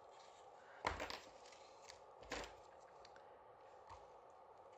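Two brief rustles of a foiled-paper ornament and ribbon being handled with tweezers, about a second in and again about two and a half seconds in, with a few faint ticks between.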